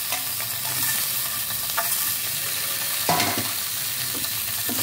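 Hot oil and spice paste sizzling steadily in a frying pan as whole boiled eggs are dropped in, with a few short knocks as they go in.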